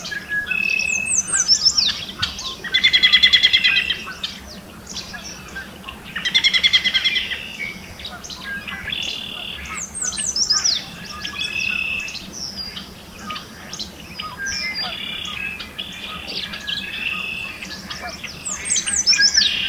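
Yellow warbler singing its bright song of quick, sweet falling notes, about a second in, again around ten seconds and near the end. Other songbirds sing throughout, including two loud fast trills around three and six-and-a-half seconds.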